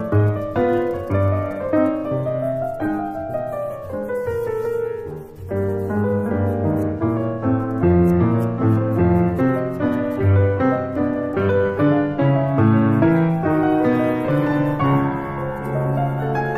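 Background piano music, a gentle melody with chords, runs throughout.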